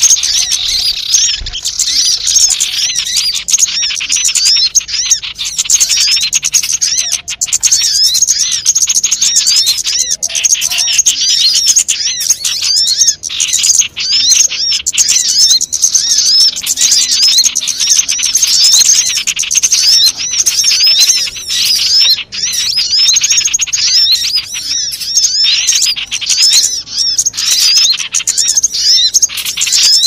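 Bird-lure (pikat) track for small wild birds: a dense, continuous chorus of many small birds giving rapid, high chirps and twitters, several a second, without a break.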